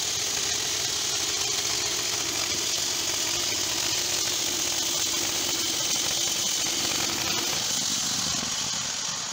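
Portable band sawmill running and sawing lengthwise through a squared log: its small engine runs steadily under load while the band blade cuts with a steady hissing noise. The sound eases off near the end.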